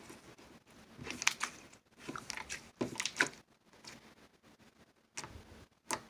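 Slime squeezed and pressed by hand, giving irregular clusters of small wet clicks and crackles.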